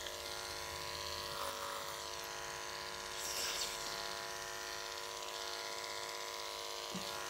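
Electric dog clippers fitted with a ceramic blade, running with a steady buzz as they are passed through a dog's thick curly coat. The buzz swells slightly about three seconds in.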